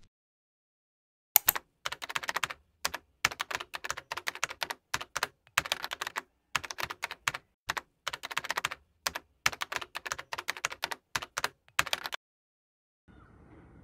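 Keys typed on a computer keyboard, sharp clicks in quick irregular runs. They start about a second and a half in and stop about two seconds before the end.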